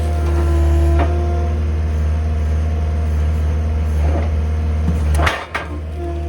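An engine running steadily, with a few short knocks and a brief dip about five seconds in before it settles back.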